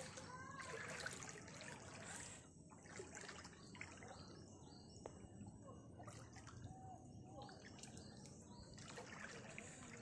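Faint trickling and splashing of floodwater, a little louder at the start and near the end, with a few short bird chirps in between.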